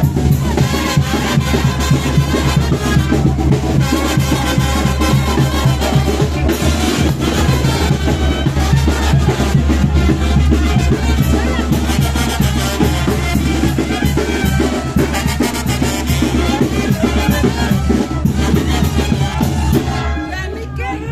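Brass band playing lively dance music, with trumpets over a steady drum beat. The music gets a little quieter near the end.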